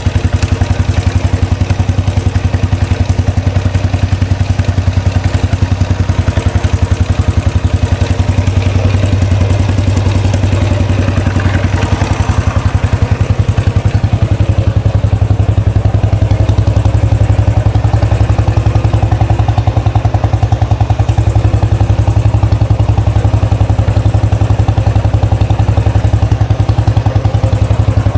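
Royal Enfield Classic 500 single-cylinder engine idling steadily with an even, rapid thumping beat, on one of its first runs after an engine rebuild.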